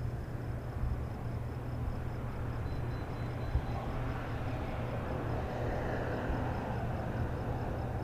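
Steady low rumble of street ambience, with a passing vehicle that swells and fades through the middle.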